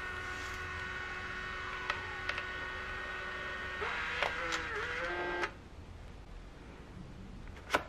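Instax Mini Link photo printer's motor running with a steady whine and a few clicks as it feeds the print out of the slot. The pitch wavers near the end of the print and the motor stops about five and a half seconds in. One sharp click comes near the end.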